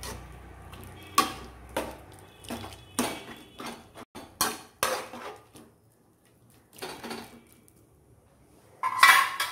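A metal utensil stirring soup in a metal pot, clinking and knocking against the pot's side in a string of irregular taps, with a louder clank near the end.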